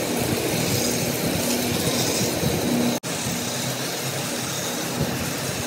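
Toy battery-powered trains running on plastic track: small electric motors whirring steadily with rapid clicking and rattling of the wheels over the track joints. The sound cuts out for an instant about three seconds in.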